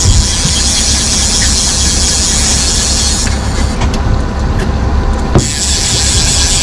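Fishing reel drag buzzing as a hooked salmon pulls line off the spool, in two runs: one of about three seconds, then another starting a little past five seconds in. Under it runs the steady low hum of the boat's outboard motor.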